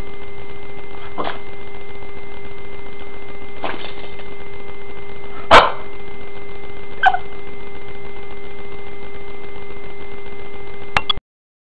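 Boston terrier giving a few short, separate barks, the loudest about halfway through, over a steady hum.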